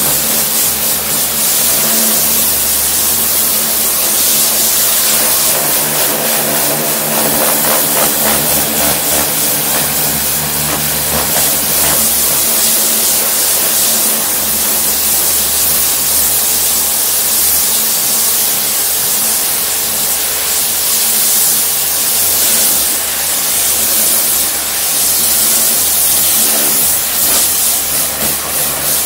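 Kärcher electric pressure washer running: the steady hum of its pump motor under the loud hiss of the high-pressure water jet hitting the patio paving slabs.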